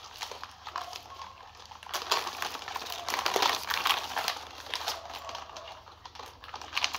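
Live mud crabs being handled in a plastic basket: hard shells and claws clicking and scraping against one another and the basket, with irregular rustling.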